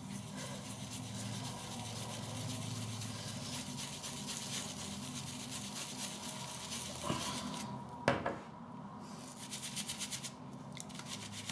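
Badger-and-horsehair shaving brush swirled hard on the face of a tub of shaving soap, a steady scrubbing rub as the brush loads. A short knock comes about two-thirds through, then near the end fast rhythmic strokes as the loaded brush whips the soap into lather in a wet palm.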